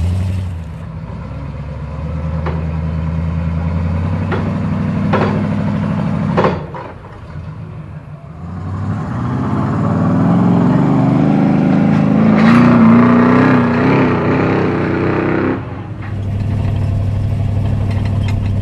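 Off-road 4x4 truck engines running on the trail, with a few sharp knocks early on. Midway a louder engine revs up under load, its pitch climbing and wavering, then cuts off suddenly back to a steady engine hum.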